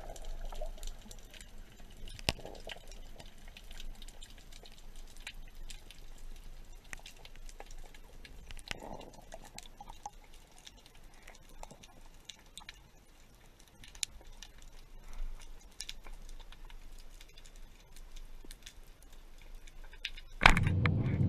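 Underwater ambience: faint scattered clicks and crackles over a soft watery hiss. Music comes in abruptly near the end.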